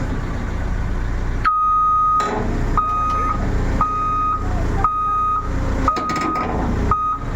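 Reversing alarm beeping about once a second, six beeps in one steady tone, over the low running of a diesel engine during the loading of a backhoe.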